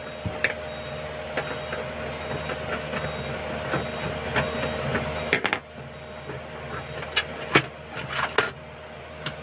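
Small clicks and knocks of plastic and metal parts being handled as the power supply board is taken out of an old DTH set-top box. They sound over a steady hum that cuts off with a louder click about five and a half seconds in.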